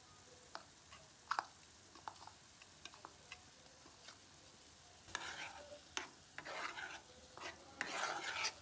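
Metal spoon scooping cottage cheese out of a plastic bowl into a frying pan, with a few sparse light clicks. From about five seconds in, the spoon starts stirring the cheese through thick sauce in a nonstick pan in repeated scraping strokes.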